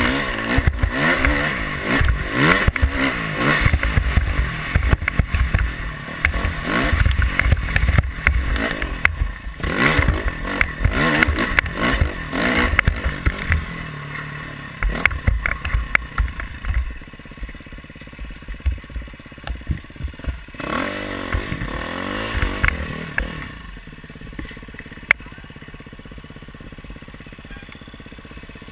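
Dirt bike engine revving hard and shifting through the revs as it is ridden over rough sand, with rattling and knocks from the bike. About halfway through it eases off to a low idle, with one short rev a few seconds later.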